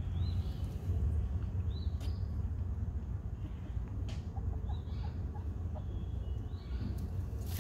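Hen in a nest box while laying, giving faint short calls about every couple of seconds over a steady low rumble, with a couple of sharp clicks.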